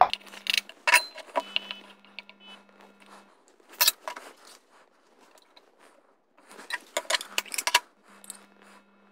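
Spoon clinking and tapping against the bowl of a small food chopper and other kitchen containers while ingredients are scooped in: sharp clicks and clinks in three bursts, the loudest just before the middle, one with a brief high ringing.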